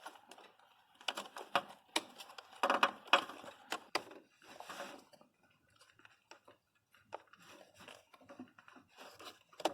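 Plastic electrical connectors being pushed onto ignition coil packs and their lock bars worked by hand: scattered clicks, snaps and rattles.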